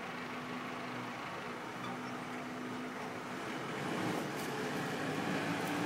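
Steady background city traffic noise, a hum of passing vehicles, swelling slightly about four seconds in, with a few faint clicks near the end.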